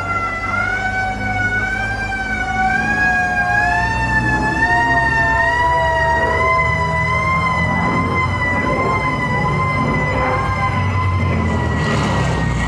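Air-raid siren sounding, its wavering wail rising in pitch over several seconds and then holding steady, while a second, lower tone slides slowly down.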